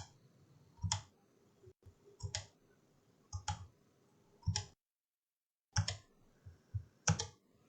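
Computer mouse button clicking, single separate clicks at uneven intervals of about a second, with a short pause midway, as line segments are clicked one after another to trim them away.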